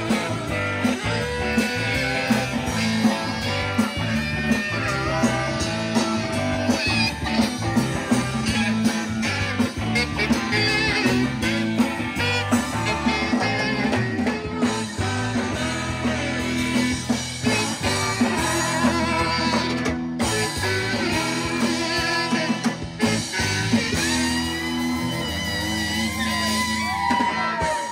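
Live rock band playing a song with electric guitar, drums and a singer, at a steady beat.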